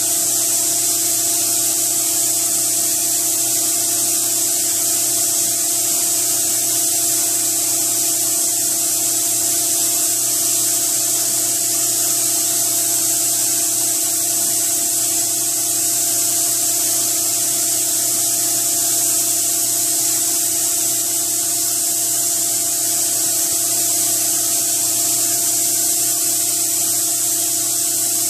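Compressed air hissing steadily through a SATA paint spray gun, with a steady hum underneath and no breaks.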